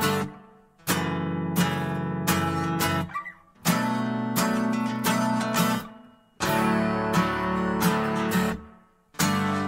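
Background music: acoustic guitar strumming chords in phrases of a few seconds, each dying away into a brief pause before the next.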